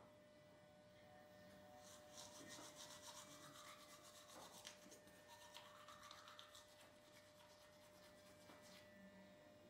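Faint scrubbing of a toothbrush on teeth: quick back-and-forth strokes starting about two seconds in and stopping a couple of seconds before the end, over a faint steady hum.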